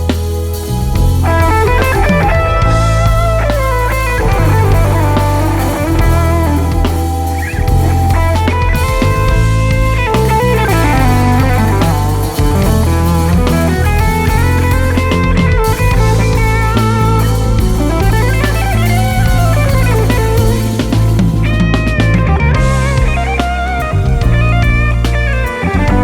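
Live band playing: electric guitar takes the lead with bending, sliding lines over bass guitar, drums and keyboards.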